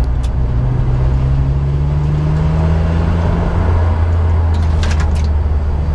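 BMW E46 M3's straight-six engine running under way, heard inside the cabin, its pitch rising slowly over the first few seconds and then holding steady, over constant road noise.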